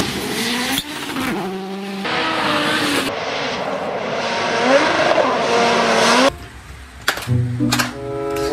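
Rally car at speed on a gravel stage, its engine pitch rising and falling through gear changes as it approaches. The engine sound cuts off suddenly about six seconds in.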